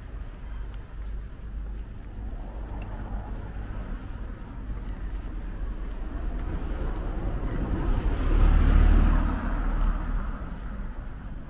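A small hatchback car passes close by from behind, its engine and tyre noise swelling to a peak about eight to nine seconds in and then fading as it drives away down the road, over a steady low rumble.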